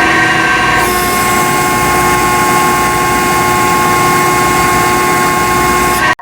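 A loud machine engine running steadily, with several steady whining tones over its noise. It cuts off abruptly near the end.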